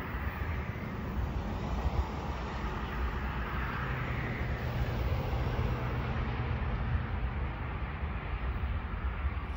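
Distant BNSF diesel locomotives of an approaching stack train, a steady low engine rumble that swells a little midway, with wind buffeting the microphone.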